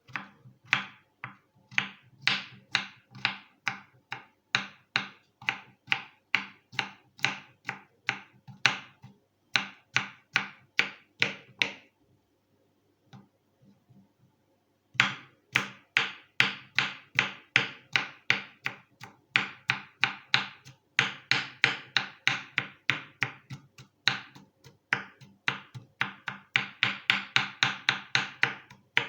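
Knife chopping a cucumber on a wooden cutting board: a run of even strokes, about three a second. The strokes pause for a few seconds midway, then come back faster.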